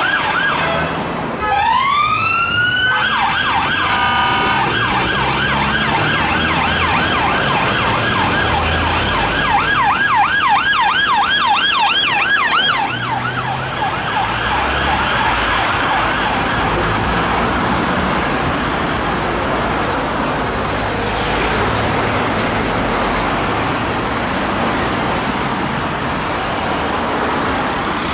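UK police car siren in traffic. It drops out briefly, winds back up with a rising sweep about a second and a half in, then runs as a fast up-and-down yelp. Roughly halfway through, the siren fades away into the noise of road traffic.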